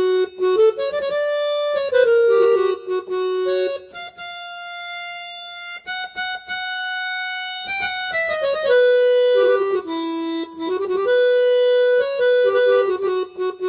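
Casio CTK-2550 electronic keyboard playing a single-note melody on a sustained, reedy accordion-like voice. The notes step up and down, with one long held higher note in the middle.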